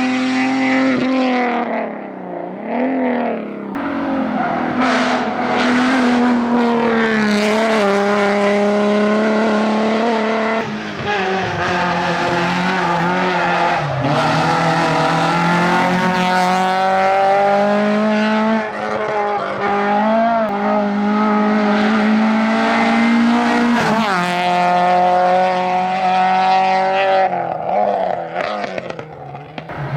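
Rally car engine at full attack on a tarmac stage, revving hard with repeated rises in pitch through the gears and drops on shifts and braking, briefly quieter near the end.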